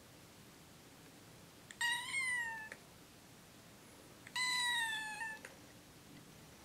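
Orange-and-white kitten meowing twice: two high, drawn-out calls of just under a second each, about two and a half seconds apart.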